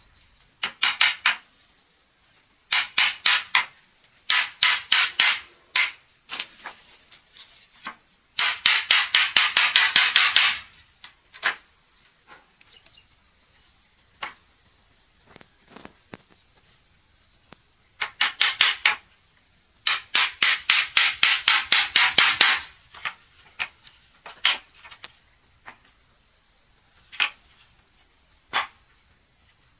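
Hammer striking wood in quick runs of rapid, even blows, about five or six a second, with single knocks between the runs. A steady high chirring of insects goes on underneath.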